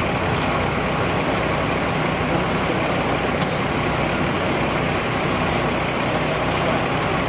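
Steady rumble of idling emergency-vehicle engines, with one light click a little past halfway.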